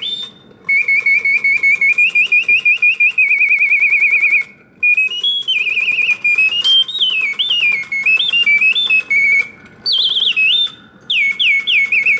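Vintage Reuge singing birdcage's bellows-and-whistle automaton bird singing continuously: loud whistled phrases of rapid warbling trills and up-and-down gliding notes, broken by brief pauses of under a second. The mechanism is running smoothly and quietly under the song.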